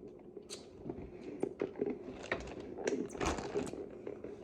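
Mukbang eating sounds: scattered clicks and crackles of seafood being handled and chewed, over a steady low hum.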